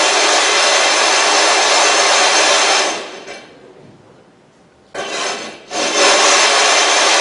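A sharpening stone being scrubbed in circles on coarse silicon carbide lapping grit on a sheet of plate glass, a loud, steady gritty grinding as the stone is flattened. It stops about three seconds in, a short scrape comes about two seconds later, then the grinding starts again.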